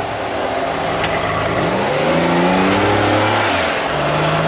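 Rock crawler buggy's engine revving up about a second and a half in, its pitch climbing steeply, then falling back near the end, over a steady hiss.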